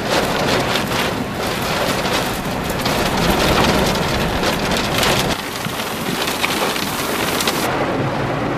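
Heavy thunderstorm rain drumming steadily on a car's roof and windshield, heard from inside the car; it eases a little about five seconds in.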